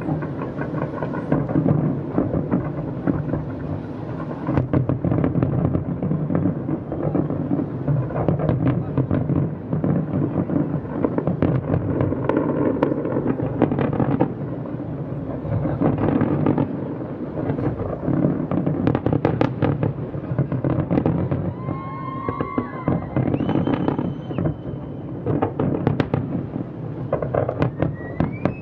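Large aerial fireworks display heard from far off: a dense, unbroken barrage of shell bursts, the low booms running together, with sharper cracks and crackle throughout.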